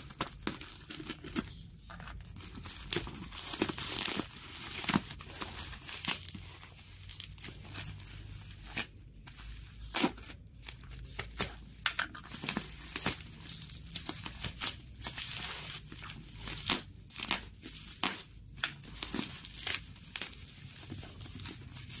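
Black plastic parcel wrapping and packing tape being torn and crumpled open by hand: irregular crinkling of plastic broken by short sharp rips.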